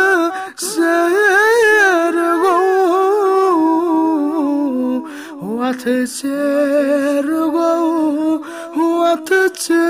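A male voice humming a wordless Kashmiri nazm melody with no instruments. The pitch bends through ornamented phrases, with a short break about halfway through.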